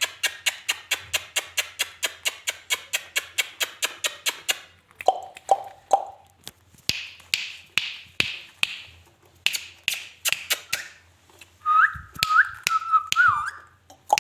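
Ringneck parrot clicking rapidly, about eight sharp clicks a second for some five seconds, then scattered clicks and three short calls, and a brief warbling whistle near the end.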